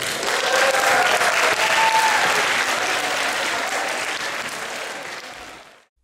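Audience applauding, strongest in the first few seconds and then dying away steadily until it cuts off just before the end.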